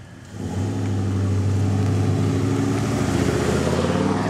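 Pickup truck engine pulling away hard from a standing start, a loud steady drone that comes in about half a second in.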